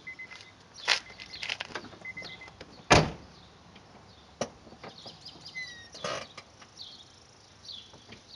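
Brief high-pitched squeaks from the rear drum brakes of a 2003 Honda Civic, mixed with several sharp knocks, the loudest about three seconds in.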